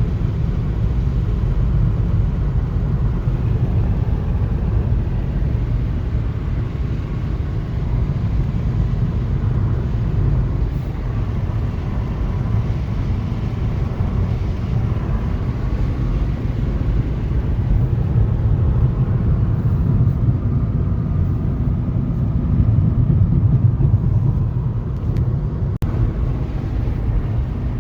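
Vehicle driving on the road: a steady low rumble of engine and road noise.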